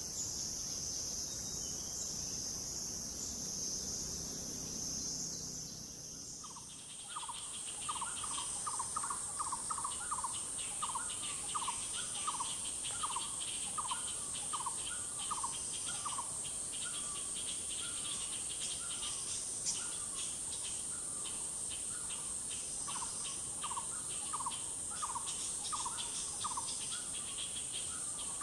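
Forest insects droning in a steady high-pitched chorus. About a quarter of the way in, the chorus changes to a different drone with a fast pulsing rattle under it, and a bird calls in quick runs of short falling notes for the rest of the time.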